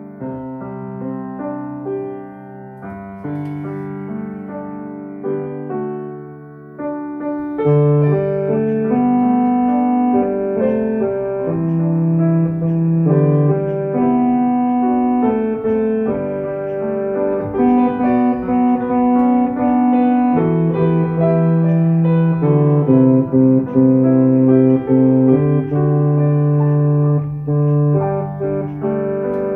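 Piano playing a slow choral accompaniment in a steady pulse, growing louder about seven seconds in.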